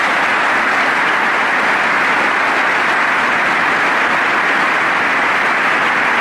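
Steady applause from a large audience of U.S. Congress members, many people clapping at once in a dense, even patter.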